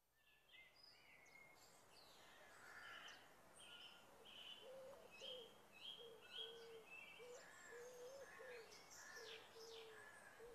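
Faint birdsong: several birds chirping and whistling, joined about four seconds in by a low call repeated many times.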